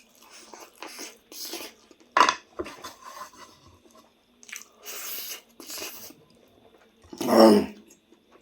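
Close-miked mukbang eating: wet chewing and crunching of food in irregular short bursts, with a sharp clink of cutlery or dish about two seconds in. Near the end comes the loudest sound, a brief vocal sound from the eater lasting about a second.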